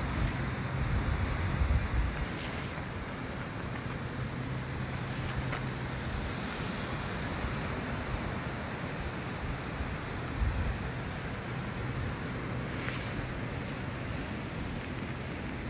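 Sea surf washing and breaking over shoreline rocks, a steady rushing hiss, with wind buffeting the microphone in gusts during the first two seconds. A faint low steady hum runs underneath.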